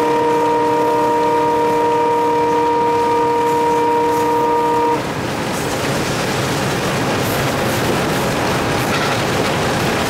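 Alco WDM3A diesel locomotive's horn sounding one long blast heard from inside the cab, a chord of several steady tones that cuts off about five seconds in. The locomotive's running noise and its wheels on the rails continue underneath throughout.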